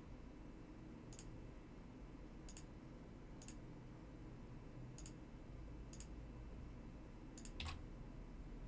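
Faint computer mouse-button clicks, about one a second, with a slightly louder click near the end: each click places a corner point of a polygonal lasso selection in Photoshop.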